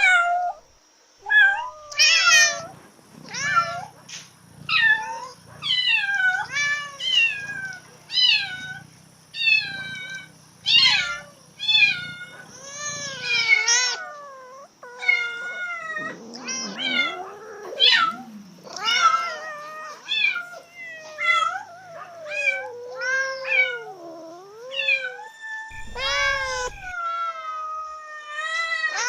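Cats in heat calling: a rapid series of loud, wavering meows and yowls that glide up and down in pitch, sometimes overlapping one another.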